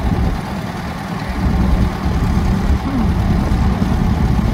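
1948 Case LA tractor's four-cylinder engine running steadily at low revs.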